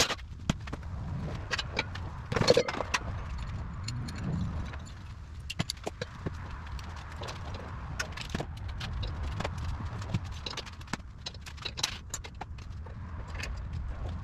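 Hand tools clinking and clicking on a steel mini-bike frame as parts are unbolted, with a louder metallic clatter about two and a half seconds in.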